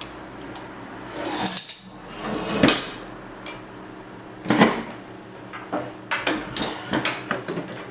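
Hand assembly of a 3D printer frame: a printed plastic vertex, T-slot nuts and an M5 screw knock and rattle against aluminium extrusions as they are fitted together. There are three louder knocks in the first five seconds, then a run of lighter clicks and rattles.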